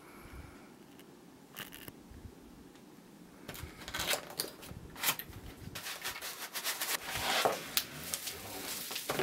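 A cardboard display box opened by hand and a bat in clear plastic wrap slid out of it: scraping cardboard and crinkling plastic. Busy, irregular rustling that starts about three and a half seconds in and grows louder toward the end.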